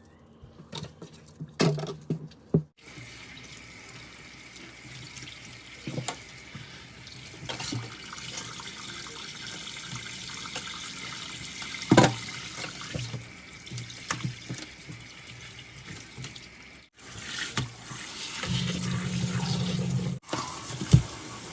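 Kitchen tap running into a sink with a steady hiss, broken by a few knocks and clatters, one loud knock about twelve seconds in; the flow cuts off abruptly a couple of times.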